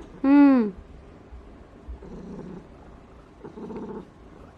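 Ragdoll cat gives one short, loud meow that rises and falls, then purrs in affectionate contentment, the purr coming in separate stretches about a second and a half apart.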